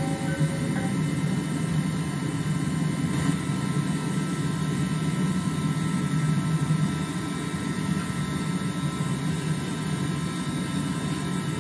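A forge burner running steadily, a constant low rushing noise, while a damascus billet heats in the fire. There are a few light metallic clinks right at the start.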